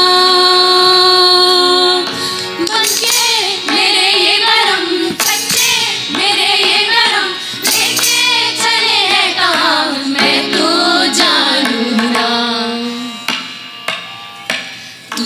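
Qawwali music: girls singing a long held note, then winding wordless vocal runs over harmonium and tabla, settling onto a lower held note and growing quieter near the end.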